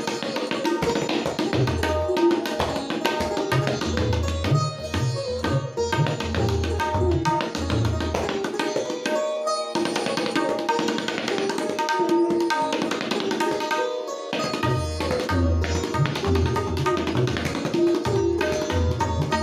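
Tabla played solo in fast Benares-style strokes on the dayan and bayan. Runs of deep bayan bass strokes drop out briefly about ten and fourteen seconds in. A steady melodic accompaniment plays underneath.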